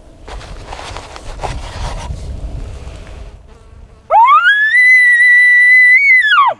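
Elk bugle tube blown by a hunter to imitate a bull elk's bugle: a loud whistle that starts about four seconds in, climbs quickly, holds a high note for about two seconds, then drops off abruptly.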